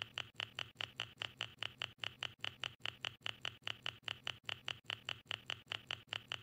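Rapid, even ticking, about five sharp ticks a second, over a faint low hum.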